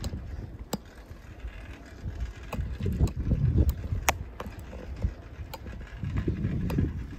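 Wind buffeting the microphone while riding a bicycle: low rumbling gusts that swell and fade, with scattered sharp clicks and rattles.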